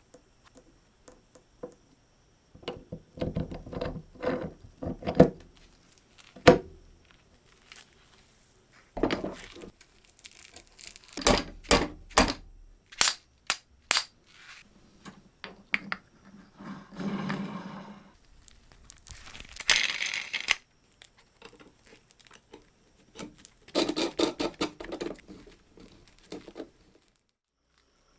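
Metal tools and parts being handled and set down on a workbench: irregular clinks, knocks and rustling in several short clusters, with a brief hiss about twenty seconds in.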